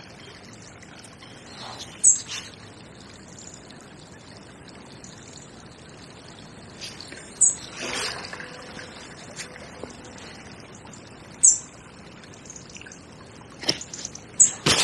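A river running high and fast, giving a steady rushing wash. A small bird gives a sharp, high call three times, about two, seven and eleven seconds in. A few clicks come near the end.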